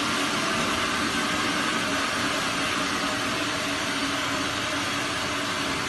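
Washing-and-filling machine for 12 and 20 litre water jugs running: a loud, steady hiss with a low hum underneath.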